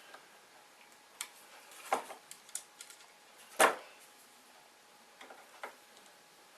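Scattered light clicks and taps from hand-tightening a wood screw and washer with a screwdriver, with one sharper knock about three and a half seconds in.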